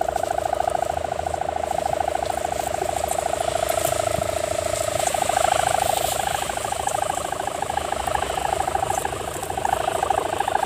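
The sendaren (hummer bow) on a large tanggalan kite humming in the wind: a steady buzzing drone with a fast throb, Dompeng-engine-like. It wavers a little in pitch around the middle and grows louder near the end.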